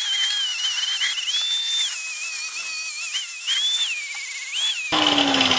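Corded electric grinder whining at high pitch, grinding old welds and paint off the steel frame underside. Its pitch dips and rises repeatedly as it is pressed into and eased off the metal. Near the end it gives way abruptly to a lower, rougher noise.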